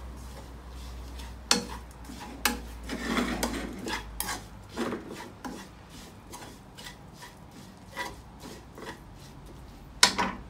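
Metal spatula scraping and knocking against a nonstick wok as thick chili paste is stirred, in irregular strokes with a sharp knock near the end.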